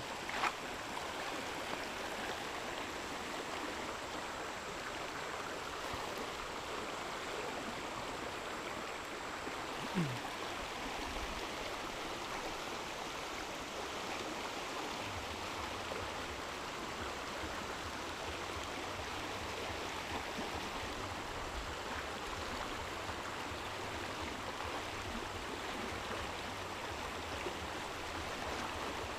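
Steady rush of flowing water below a dam, with a brief knock about ten seconds in.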